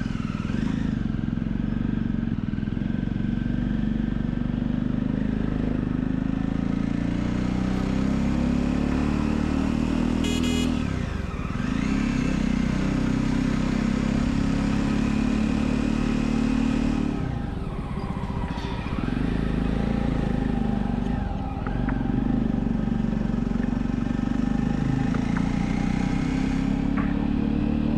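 Jawa motorcycle's single-cylinder engine running under way, with wind noise. The engine note drops and climbs again three times, about a third of the way in and twice more past the middle.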